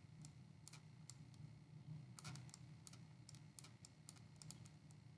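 Faint, irregular light clicks and taps of handwriting being entered on a computer screen with a pen input device, over a faint low hum.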